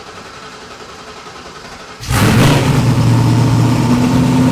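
Ford GT supercar engine running at idle just after starting, then sharply revved about two seconds in and held at high revs.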